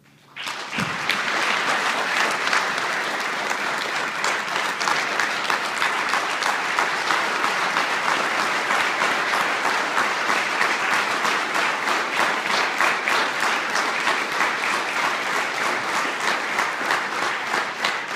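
Audience applauding, starting about half a second in and holding steady; near the end the applause thins so that separate claps stand out.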